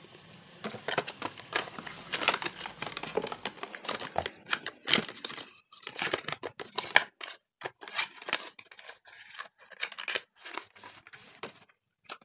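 Product packaging being handled and opened: a dense run of crisp, irregular crinkles, rustles and tearing sounds from wrapping.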